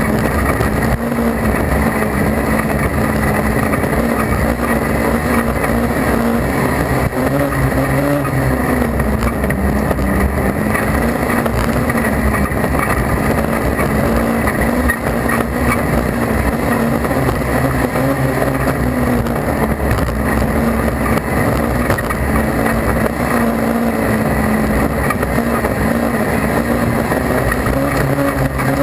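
Class 4 autograss racing car's engine heard from inside the cockpit, running hard on the dirt track, its note rising and falling repeatedly as the driver accelerates and lifts through the corners, over a steady rush of noise.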